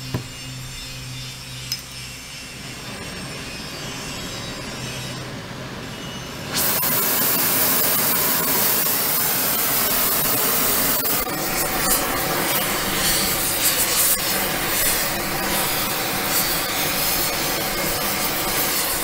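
Oxy-fuel gas torch lit about six and a half seconds in, then running with a loud, steady hiss and a few pops. It is heating a rusted-on steel handle toward red hot so the rust lets go.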